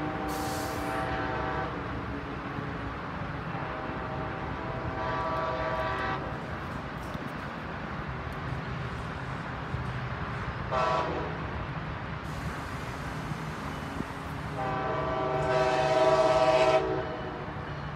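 Approaching passenger train's locomotive horn sounding the grade-crossing signal: long, long, short, long, the last blast the loudest. Under it runs the steady low drone of the oncoming train.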